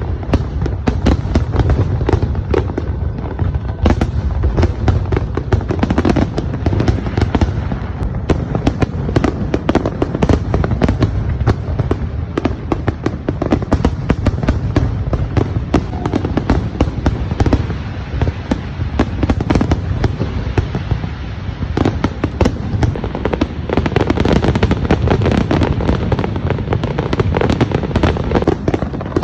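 Fireworks display: a continuous barrage of bursting shells, rapid overlapping bangs and crackles over a steady low rumble.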